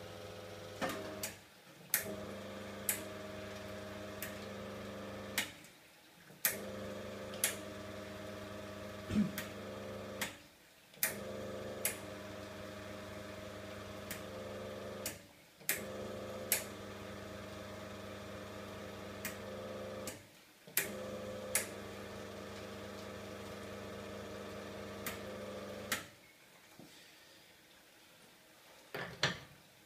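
Commercial espresso machine running with a steady electric motor hum in spells of about four seconds, each broken by a short pause. Sharp clicks come as it cuts back in, with scattered clicks between. The hum stops near the end, leaving a quieter background and a couple of clicks.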